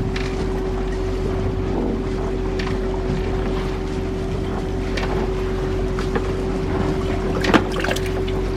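Charter boat's engine running steadily with a constant hum, wind buffeting the microphone, and a few light knocks, the loudest about seven and a half seconds in.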